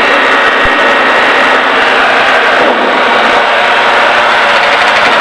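Steady engine and airflow noise in the cabin of a Diamond DA40 light aircraft in flight, a constant even rushing with a faint steady whine through it.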